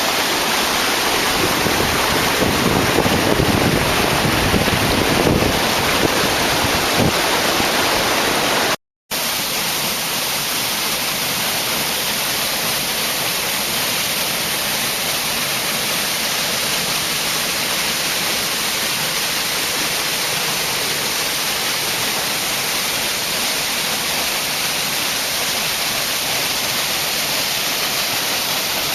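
River waterfall rushing as a steady, loud noise. It cuts out briefly about nine seconds in and comes back thinner and hissier, with less low rumble.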